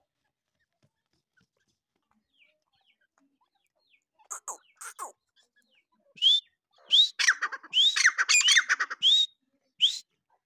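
Grey francolins calling: after a few short harsh notes about four seconds in, a quick run of about seven short calls, each rising sharply in pitch, comes from about six seconds in.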